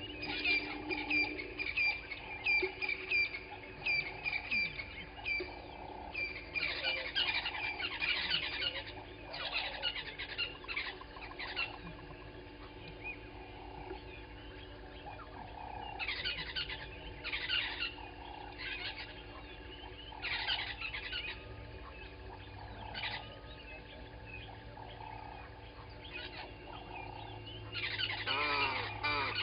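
Morning chorus of wild birds: one bird repeats a short high chirp about twice a second while bursts of mixed song from several others come and go. Harsh, downward-gliding honking calls begin near the end.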